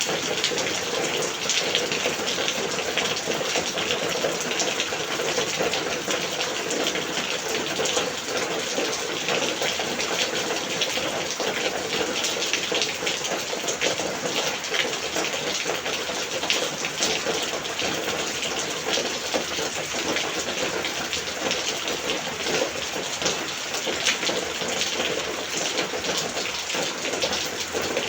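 Monsoon rain falling steadily and heavily, a dense even hiss of drops with a constant patter of small splashes.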